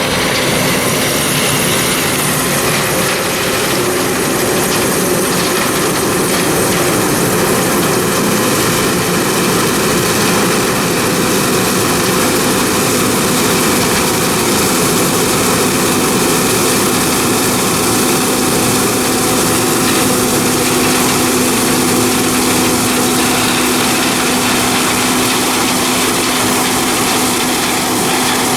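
Farm machinery engine running steadily, a constant drone with a steady hum that grows a little stronger about halfway through.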